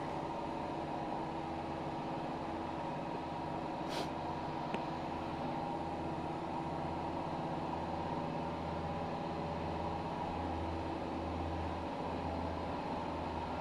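A steady machine hum over a faint hiss, with a sharp click about four seconds in and a fainter one shortly after.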